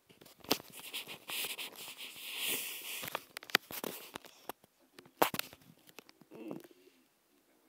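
Close rustling of a bedsheet and duvet with handling knocks and sharp clicks on a phone microphone, the loudest knocks about half a second, three and a half and five seconds in; the rustling is thickest over the first few seconds and dies away near the end.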